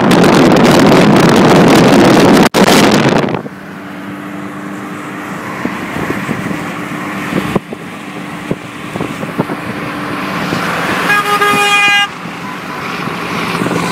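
Loud rush of wind and traffic noise at motorway speed for the first three seconds or so, then a quieter, steady engine and tyre hum. About eleven seconds in, a horn sounds for about a second.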